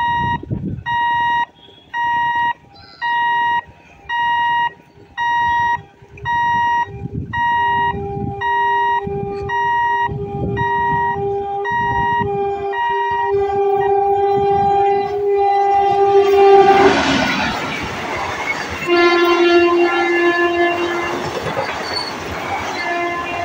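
A level-crossing warning alarm beeps steadily, a little faster than once a second, as an Indian Railways express approaches on electrified track, its locomotive sounding a long, steady horn that grows louder. About 17 s in the locomotive passes with a loud rush of wheels and air. The horn then sounds again at a slightly lower pitch as the yellow coaches run past.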